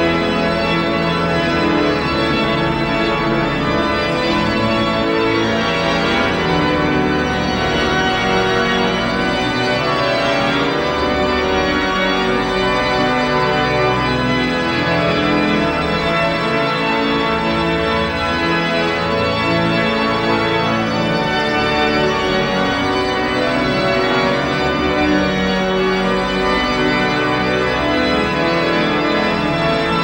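Pipe organ playing full, sustained chords, with long held low bass notes beneath.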